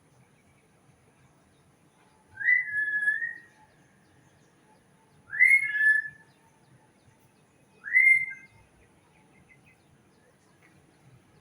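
A bird giving three clear whistled calls, each a quick upward sweep that levels off into a held note, spaced a couple of seconds apart.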